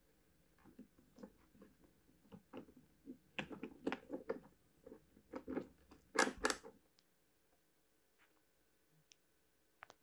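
Wood screw being driven by hand with a screwdriver into a wooden block: an irregular run of short creaks and crunches that grows louder, the two loudest just after six seconds. It stops about seven seconds in, followed by a few faint ticks.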